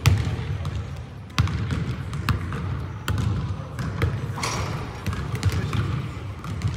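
A basketball bouncing on a hardwood gym floor: separate bounces about a second apart, each with a short echo in the large hall.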